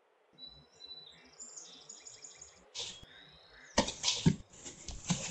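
Ambient outdoor sound design: faint high chirping calls, like small birds, over a low rumble. About three and a half seconds in, a few louder short noisy bursts follow.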